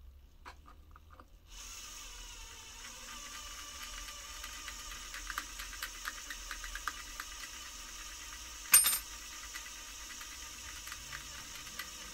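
A small electric drill starts up about a second and a half in and runs steadily, with scattered ticks and rattles as the bit works. A single sharp metallic clack about nine seconds in is the loudest sound.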